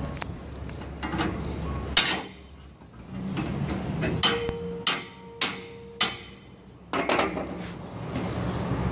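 Steel floor grate struck repeatedly with a long-handled metal tool to knock it loose: about six sharp metallic hits between two and seven seconds in, some leaving a short ring.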